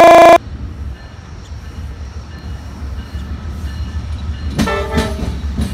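A loud, harsh steady tone cuts off suddenly just after the start. An Amtrak passenger train hauled by a GE Genesis diesel locomotive then passes with a low rumble. About four and a half seconds in, the locomotive's multi-note horn gives a short blast, followed by a few knocks from the wheels.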